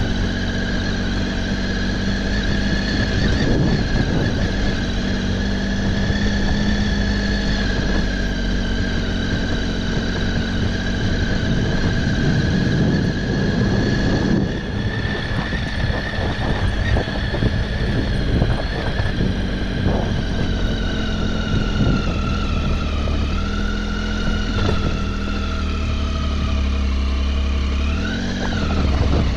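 Triumph Tiger XC adventure motorcycle's three-cylinder engine running at steady revs on a dirt track, over a low rumble. Near the end the revs drop and then pick up again as the bike rides onto rocky ground.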